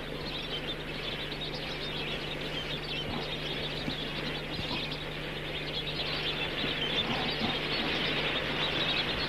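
A large flock of lesser flamingos calling together: a dense, continuous chatter of many overlapping voices, growing slowly louder.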